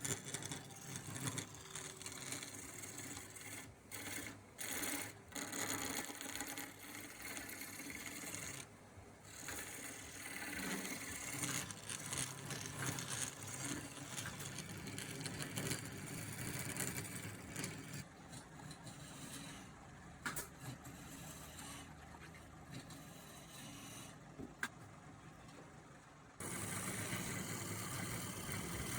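Wood lathe running while a turning tool cuts the spinning palm wood, a rough hiss that swells and drops as the tool bites and lifts. The sound changes abruptly about three seconds before the end.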